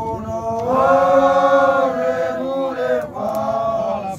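A group of voices singing a chant together, holding one long note about a second in, then moving on in shorter phrases.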